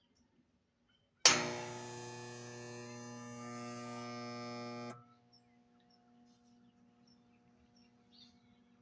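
Air conditioner motor trying to start: it switches on with a sharp click and then gives a steady electrical buzz for almost four seconds without getting going, before it cuts off suddenly and only a faint hum remains. This is the locked-motor buzz of a failed start caused by a bad run/start capacitor.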